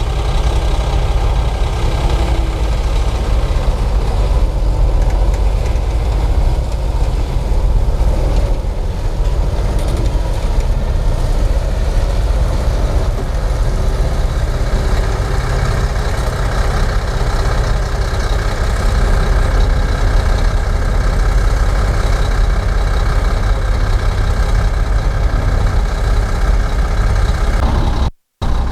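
Komatsu D58P crawler bulldozer's diesel engine running steadily. It cuts out for a moment just before the end.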